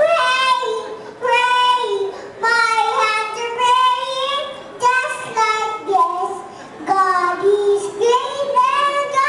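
A young girl singing a slow tune into a handheld microphone, in phrases of held notes with short breaths between them.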